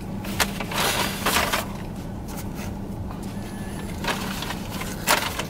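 Paper fast-food bag and wrappers rustling and crinkling in short bursts as food is unpacked, over a steady low hum.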